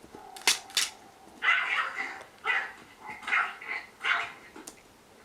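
A dog barking, about four barks spaced roughly a second apart, after two short sharp clicks near the start.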